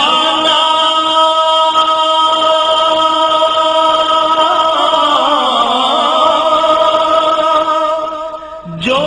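A single voice holding a long sung note in an Urdu devotional naat (praise of the Prophet), drawn out on one vowel. Its pitch wavers about halfway through, then it breaks off briefly near the end and a new held note starts.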